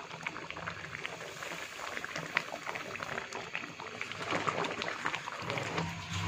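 Milk boiled down nearly dry to a thick, grainy mass, bubbling and popping in a cooking pot as a wooden spoon is drawn through it. The many small, irregular pops are the last of the milk's water cooking off, just before sugar and ghee go in.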